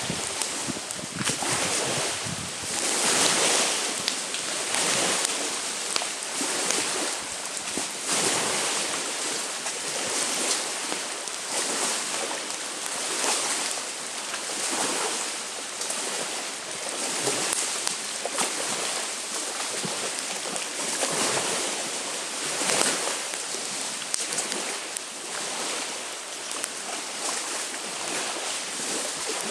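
Small lake waves washing onto the shore in a steady wind, the rush swelling and fading every second or two, with wind buffeting the microphone.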